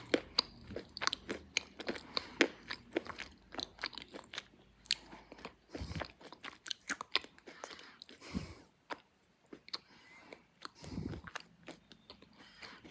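Slate pencil being bitten and chewed close to the microphone: a rapid, irregular run of sharp, dry crunches that thins out over the last few seconds, with a few dull low thumps in between.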